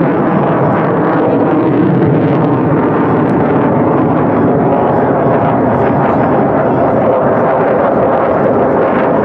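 Fighter jet engine noise from an aircraft flying a display pass, loud and steady throughout.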